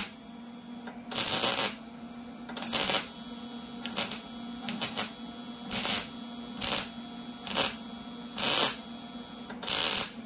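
MIG wire-feed welder making a string of short tack welds on thin sheet-steel door skin: about nine brief crackling bursts of arc, each under a second, with a steady low hum between them. The welder is set a little hot.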